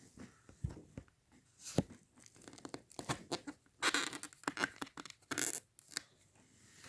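A paper poster rustling and crinkling as it is handled, with scattered clicks and taps; the loudest rustling comes about four seconds in and again about a second and a half later.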